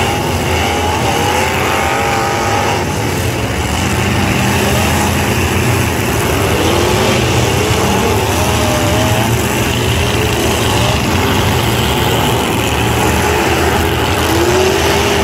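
Several demolition derby pickup truck engines running and revving at once, their pitches rising and falling over each other.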